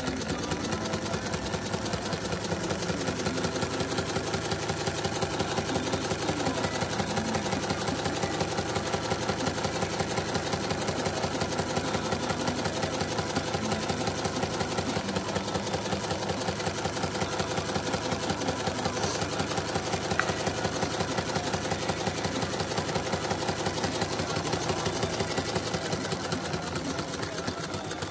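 LEGO Technic pneumatic engine running steadily, its cylinders and valve making a fast, even clatter over a hiss of air.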